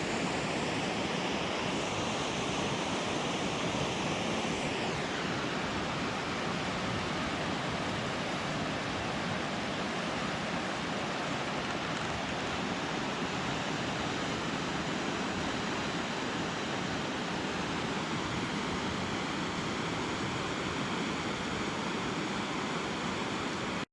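Steady rushing of a swollen river running high and fast after heavy rain, with a faint tone fading out about five seconds in.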